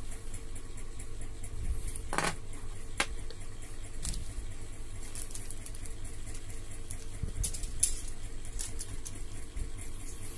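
A few light clicks and knocks of small model-kit parts being handled and set down on a tabletop, with a brief scrape about two seconds in and the sharpest click near eight seconds, over a low steady background rumble.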